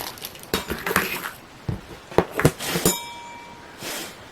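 Several sharp clicks and taps, then a short ringing clink about three seconds in.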